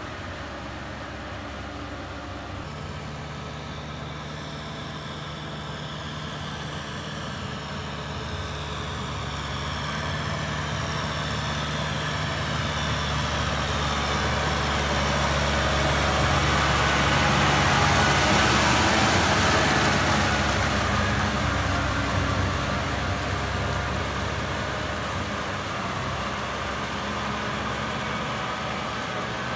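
Kubota M6040SU tractor's diesel engine running steadily under load as it drags a rotary tiller through a flooded paddy field, with water and mud churning. The sound grows louder toward the middle, loudest a little past halfway, then eases off.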